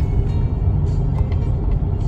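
Steady low rumble of road and engine noise inside a moving car's cabin, with music playing faintly underneath.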